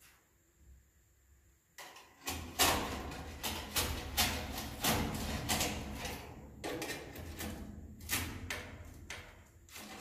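Long nest-harvesting pole scraping and knocking against wooden ceiling joists as swiftlet nests are pried off. The scraping starts about two seconds in and goes on as rapid, irregular rasps and knocks over a low rumble, easing briefly past the middle.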